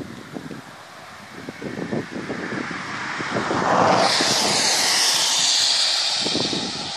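Wind buffeting the microphone in uneven gusts. About halfway through, a loud rushing noise swells up, holds for a couple of seconds and then eases off.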